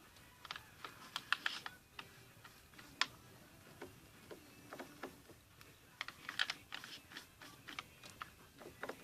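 Sticky hand-soap slime being mixed: irregular small clicks and crackles, in short clusters.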